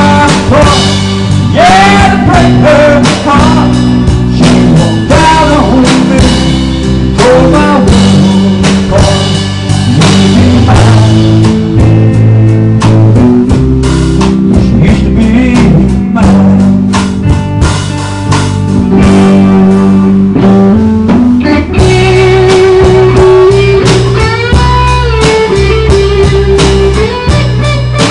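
Instrumental break of a country-rock song: a lead electric guitar plays bending notes over bass and a drum kit keeping a steady beat.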